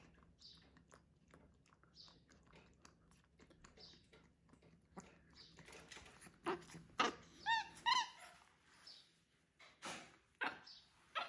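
Capuchin monkey calling: a run of loud, short squeaky calls about halfway through, including a quick series of rising-and-falling chirps, then a few more sharp calls near the end. Before the calls, faint soft sounds of her sucking at a baby bottle.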